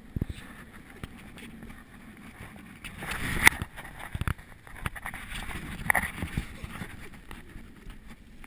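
Wind buffeting a handheld action camera's microphone as a low rumble, broken by handling knocks and a few sharper bumps as the camera is swung about.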